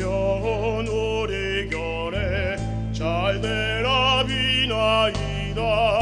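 Small choral vocal ensemble singing in a classical style, several voices with vibrato, over held instrumental chords that change about two seconds in and again near the end.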